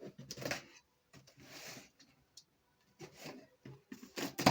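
Cardboard box of a power-tool combo kit being opened by hand: a series of short scraping and rustling noises from the flaps and packaging, ending in a sharp knock.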